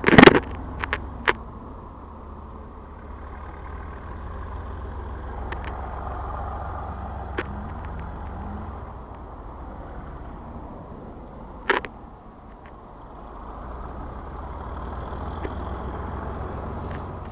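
Diesel locomotive engine, the Class 37's English Electric V12, running out of sight with a steady low drone that swells and eases twice. A few sharp knocks sound at the start and one more about twelve seconds in.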